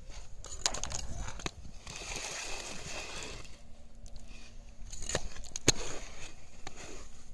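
Ice skate blades gliding and scraping on thin, clear lake ice, with a longer scrape about two seconds in. Several sharp cracks and pings come from the ice sheet, the loudest near the end.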